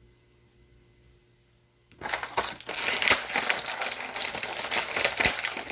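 Plastic toy packaging crinkling and crackling as it is handled, starting suddenly about two seconds in.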